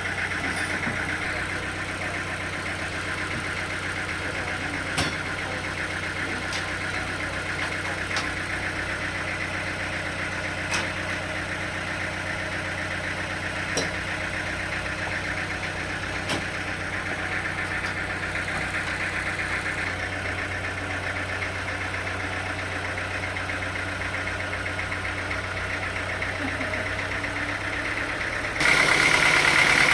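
Engine running steadily at idle, with a few sharp clicks over it; about a second before the end the sound abruptly gets louder and higher.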